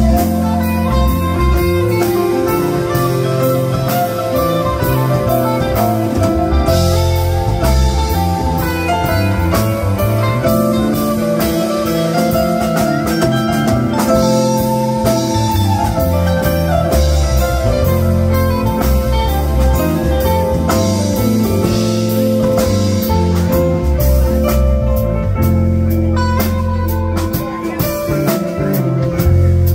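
Live rock band playing an instrumental passage: electric guitar over electric bass and a drum kit, with steady drum strikes.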